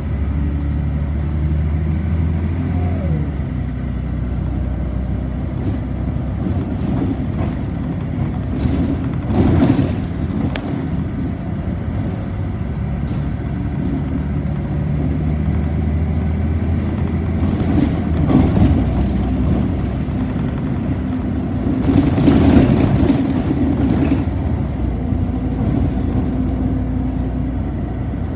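City bus running along, heard from on board: a steady low engine and road hum, with a few louder swells of noise, the longest a couple of seconds after the middle.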